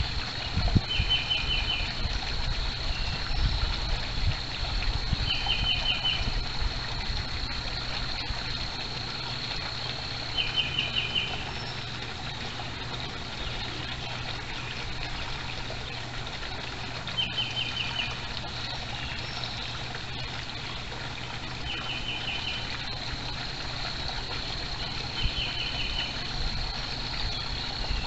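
A small songbird repeating a short, fast trill of five or six notes, six times, every four to six seconds. Underneath is a steady trickle of pond water and a constant thin high tone.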